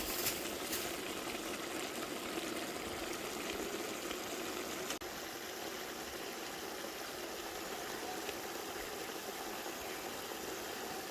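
Pots of curry goat and stew chicken bubbling on the stove, a steady simmering hiss with a few light clicks near the start. The sound briefly cuts out about halfway.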